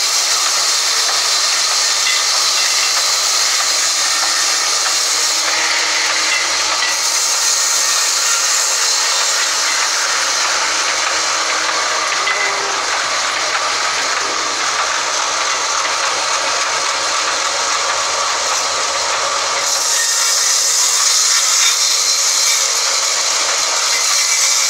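Sawmill's vertical band saw running and ripping lengthwise through a log: a loud, steady hiss and whine of the blade in the wood.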